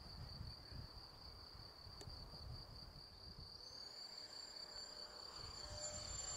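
Faint, distant whine of an FMS Viper V2 70 mm electric ducted fan jet, growing louder from about halfway through, over a steady high insect chirring.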